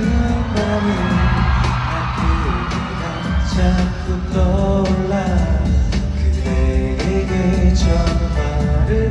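Live pop song sung over an amplified band through a concert PA during a sound check.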